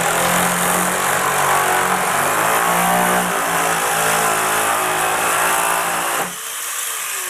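Handheld electric sheet metal shear running and cutting through sheet metal, its motor hum wavering slightly in pitch under load. It stops abruptly about six seconds in.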